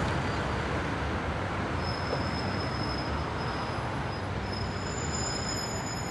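City street traffic: a steady wash of noise from passing cars, with a faint thin high-pitched whine from about two seconds in.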